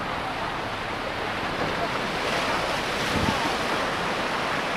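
Ocean surf washing onto the beach, with wind rumbling on the microphone; the wash swells about halfway through.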